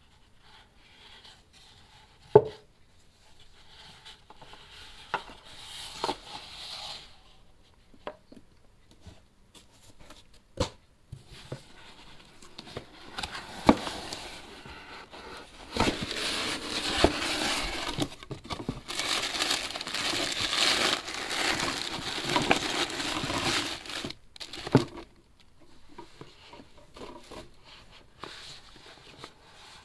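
Packaging handled by gloved hands: a single sharp knock about two seconds in, then scattered taps and a long stretch of rustling and crinkling of a cardboard box and its packing, loudest in the middle and dying away near the end.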